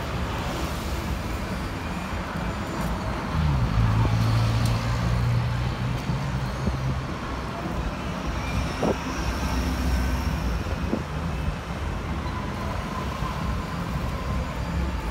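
Road traffic passing close by on a city boulevard: engines and tyres of cars driving past. A low engine hum swells about three and a half seconds in, is loudest until about seven seconds, and returns more faintly a little later.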